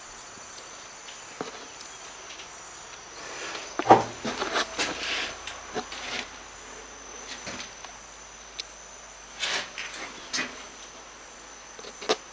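Insects chirring steadily at a high pitch, with footsteps, knocks and rustling over it; the loudest is a sharp knock about four seconds in.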